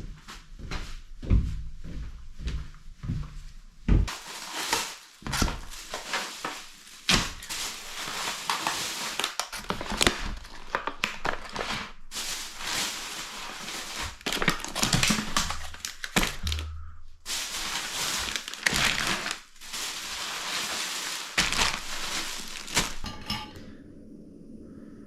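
Continuous crumpling and rustling with many sharp knocks, as of materials being handled, after a few low thumps in the first seconds; it stops about two seconds before the end.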